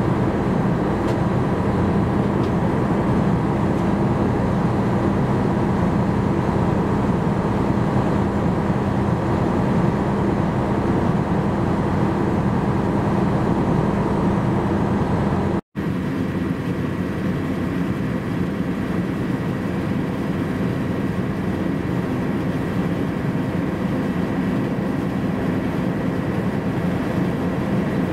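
Steady low engine drone of a pusher-type cargo ship under way, a constant hum with no change in pitch. It drops out for an instant at an edit about halfway through, then carries on.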